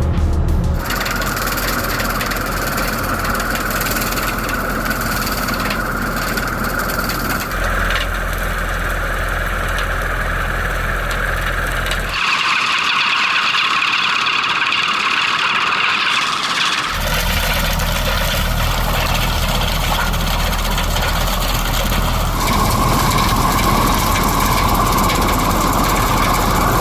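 Hedge-trimming machinery running steadily: an engine hum with a higher whining band from the cutting gear. The sound changes abruptly several times, as if separate clips were joined.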